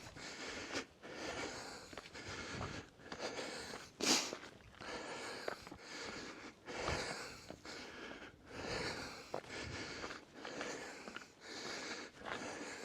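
A hiker breathing hard, with heavy in-and-out breaths about once a second from the exertion of climbing a steep trail, and one sharper, louder exhale about four seconds in.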